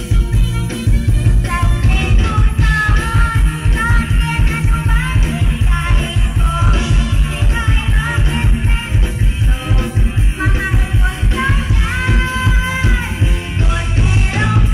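Live Isan mor lam band music, loud through a stage sound system, with a steady bass-heavy beat and a woman singing from about two seconds in.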